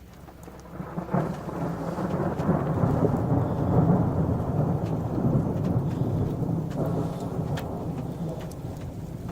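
Thunder from a nearby lightning strike: a sharp crack about a second in, then a deep rolling rumble that swells over the next few seconds and slowly fades.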